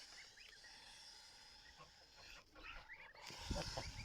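Domestic fowl calling in a poultry yard: scattered short calls over a faint high chatter of birds. There is a low rumble near the end.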